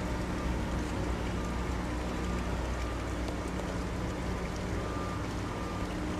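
Boat engine idling steadily: a low, even hum under a hiss of background noise.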